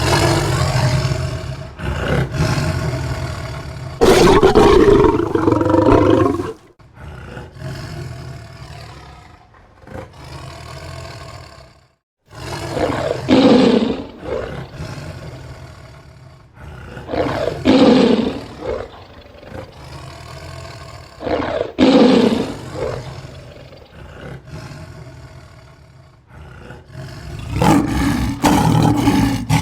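Tiger roaring repeatedly. Long loud roars fill the first six seconds, followed by a quieter stretch and a brief silence. Then come short roars about every four seconds, and a longer roar near the end.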